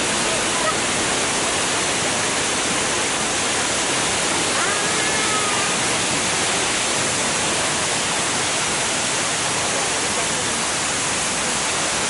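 Shiraito Falls, many thin curtains of water pouring down a wide rock wall, making a steady, even rush of falling water.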